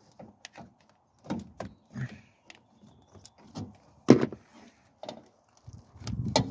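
Hands handling the plastic coolant reservoir and nearby parts in a van's engine bay: irregular knocks, clicks and clunks of plastic and metal, the loudest about four seconds in, with a rustle of handling near the end.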